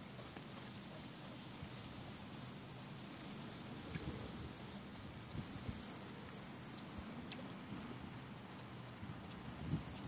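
An insect chirping in short, even pulses, about three a second, over the scattered soft thuds of a horse's hooves on sand footing.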